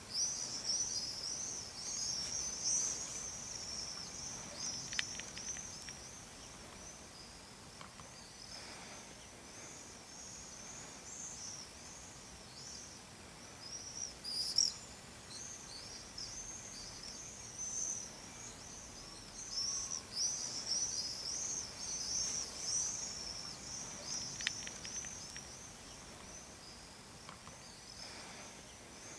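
Many small birds twittering at once: a dense, high-pitched chorus of chirps that goes on without pause, with one louder, higher chirp about halfway through.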